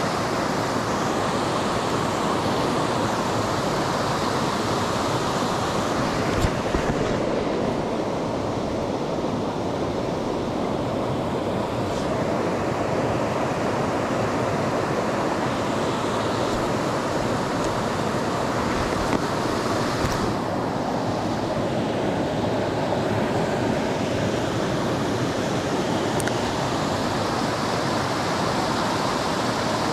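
Creek water rushing steadily over rocks in a small riffle or fall.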